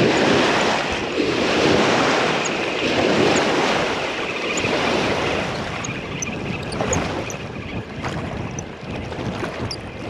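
Small river waves splashing and washing against a muddy, rocky bank, with wind on the microphone; loudest in the first few seconds, then easing a little.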